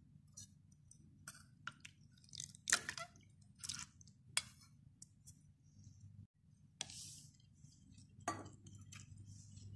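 Faint, scattered clinks and scrapes of a spoon against a steel cup and a ceramic bowl as soaked agar is scraped into orange juice and stirred in, with a brief wet stirring swish near the end.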